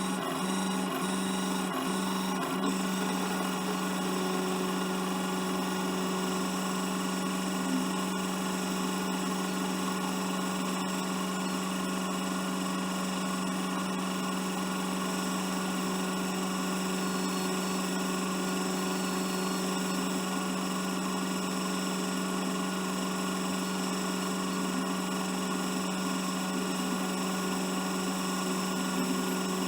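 Steady hum and whine of a tow truck's hydraulic pump running, with a few short dips about half a second apart near the start.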